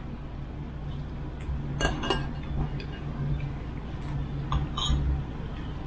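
Dishes and cutlery clinking: several separate clinks of spoons against bowls, over a low steady hum.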